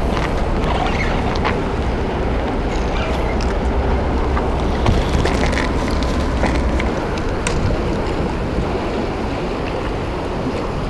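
Wind buffeting the microphone over steady harbour-side noise, with a low rumble that drops away about seven seconds in and a few small clicks.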